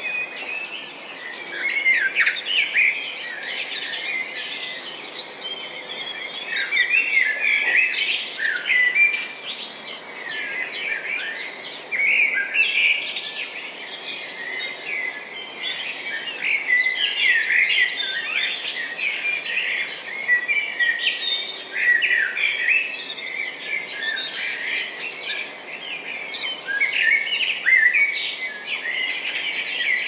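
A dense chorus of many small birds chirping and trilling at once, with overlapping short, quick calls.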